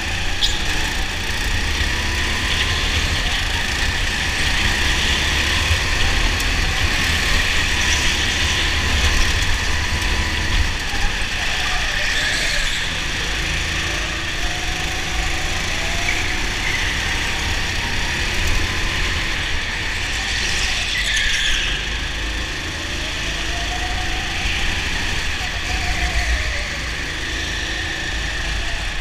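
Racing go-kart at speed, its drive rising and falling in pitch as it slows for corners and accelerates out of them, over a steady heavy rumble. Twice a brief high squeal cuts in.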